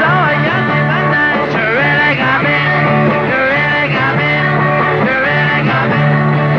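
Rock music playing, with a low bass note repeating in even blocks under bending guitar or vocal lines.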